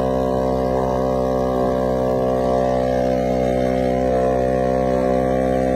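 A heavily loaded Vespa scooter's single-cylinder two-stroke engine running at a steady speed, a constant drone with many overtones.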